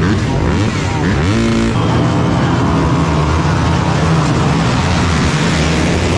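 Motocross bike engines running loud at high revs. About a second in, one engine's pitch climbs sharply as it revs up, then holds steady.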